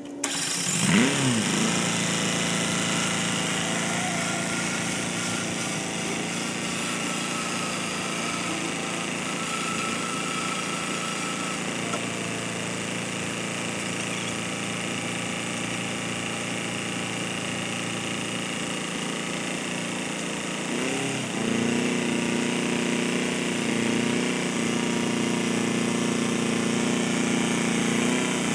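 Farm tractor engine running steadily, then revving higher and louder about 21 seconds in as it hauls a boat on its trailer up the ramp.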